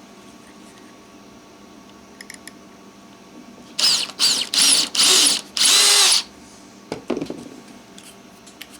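Small electric drill with a tiny, roughly 1/16-inch bit, drilling a small centred hole in a Morse key paddle. The drill runs in five short bursts about four seconds in, each whine rising and falling in pitch, the last burst the longest.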